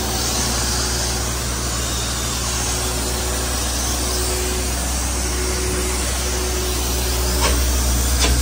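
Plasma cutter cutting through welded steel plate: a steady, loud hiss of the cutting arc and air, over a steady low hum. A couple of faint clicks come near the end.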